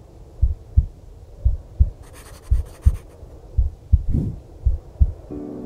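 Heartbeat sound effect: low paired thumps, lub-dub, about once a second. A brief burst of fast, fine ticking comes about two seconds in, and soft music notes begin near the end.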